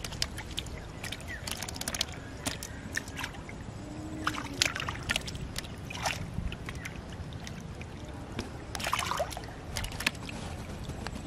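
Hands sloshing and squelching through shallow muddy water, with irregular small splashes and spatters as they grope in the mud for small fish.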